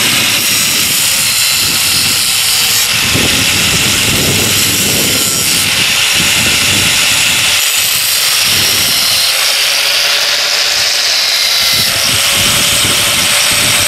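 Angle grinder running at full speed with its disc grinding into a steel pipe: a loud, steady motor whine over a dense grinding hiss.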